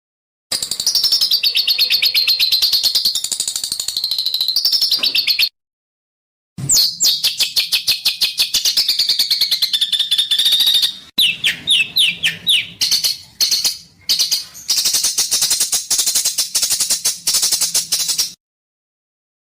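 Songbirds giving fast, harsh rattling trills and rapid-fire repeated high notes: the rough 'besetan' calling, in separate recorded clips cut apart by short silences. About eleven seconds in comes a quick run of falling, slurred notes.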